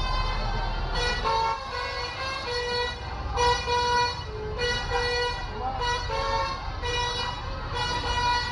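Indonesian bus 'telolet' multi-tone horn playing a tune of short notes that change pitch about every half second, over the low rumble of engines.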